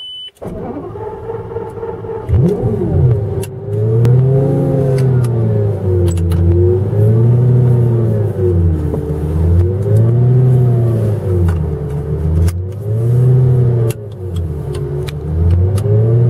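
Heffner twin-turbo Lamborghini Gallardo V10 starting on the key, catching about half a second in, heard from inside the cabin. It is then revved in slow swells about every three seconds, the pitch rising and falling each time.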